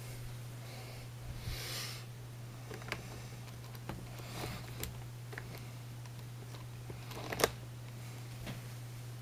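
Steady low electrical hum with scattered faint clicks and a brief rustle of handling, and one sharper click near the end; the RC car's engine is not running.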